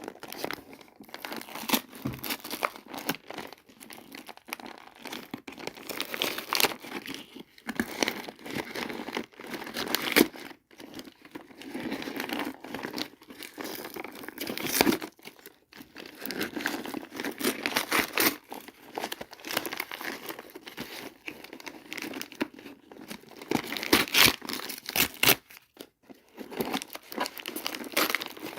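Toy packaging being handled and opened: irregular crinkling, rustling and tearing with sharp little snaps, louder in spurts.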